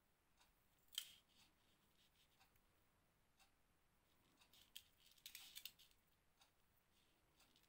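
Faint handwork sounds of crochet with thread and seed beads: a single sharp click about a second in, then a short run of small ticks and a brief scratchy rustle past the middle, over near silence.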